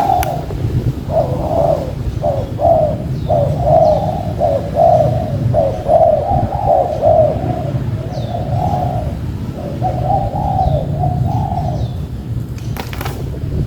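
Spotted doves (tekukur) cooing in a long series of short, low coos, with faint high chirps from small birds over a steady low rumble. A sharp knock comes near the end.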